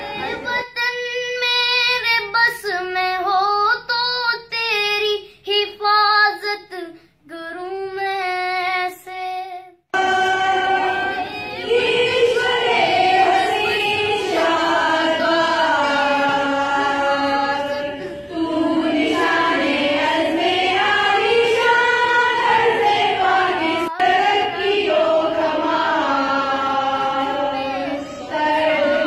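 A single high voice sings with short breaks for about the first ten seconds. Then, after an abrupt change, a group of women sings a Pakistani patriotic song together into microphones.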